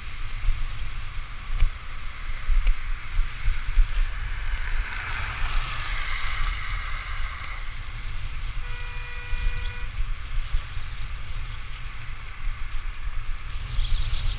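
Wind buffeting the microphone of a moving action camera, a constant fluttering rumble over steady road hiss. The rush of noise swells for a few seconds a little before the middle, and near the middle a steady pitched tone, like a horn, sounds once for about a second.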